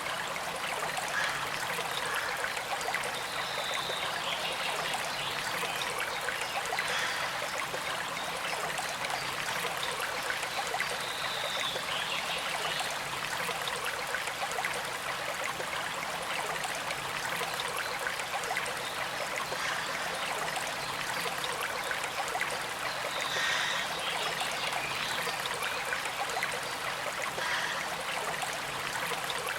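Shallow creek flowing and trickling steadily: a constant, even rush of moving water.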